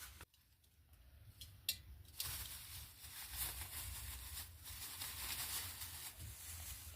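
Leafy green vegetables being handled and cut up: a few sharp clicks, then from about two seconds in a continuous crisp rustling and tearing of leaves.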